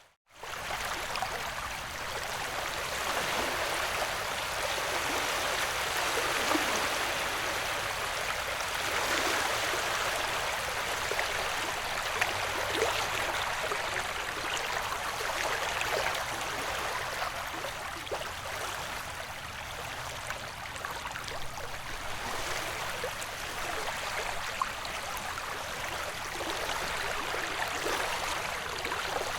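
Ocean wave ambience: a continuous wash of water noise that slowly swells and eases, after a very brief dropout at the start.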